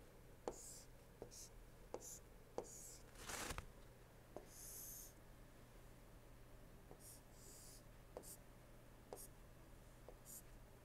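Faint, irregular taps and short scratching strokes of a stylus drawing on a tablet screen.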